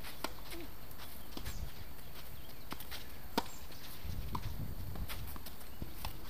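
Tennis ball struck by rackets during a doubles rally: a few sharp, short pops, the loudest about three and a half seconds in, with shoes scuffing on the hard court.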